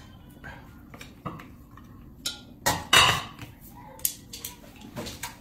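Ceramic plates and a bowl clinking and knocking together as they are set down and stacked on a table, with chopsticks tapping the dishes: a string of short, sharp clinks, the loudest about three seconds in.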